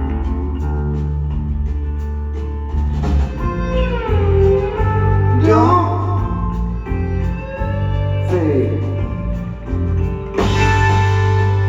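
Live band music: an instrumental passage of a slow rock song, with a lead guitar playing bending, sliding notes over a steady bass and rhythm part.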